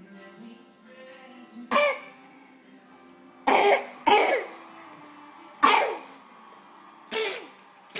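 A person coughing five separate times, each a short, loud cough, with a quick pair about three and a half seconds in. Faint background music plays underneath.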